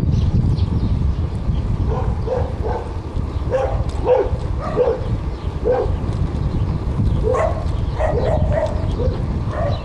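Steady low rumble of a moving vehicle's road and wind noise, with clusters of short, high, squeaky yips a few times a second, about two seconds in, again through the middle and again near the end.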